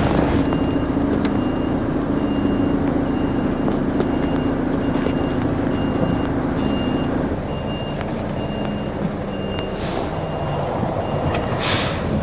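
An articulated lorry's reversing alarm beeps at an even pace as the truck backs up, over its diesel engine running. The engine note drops about seven seconds in, and there is a short hiss near the end.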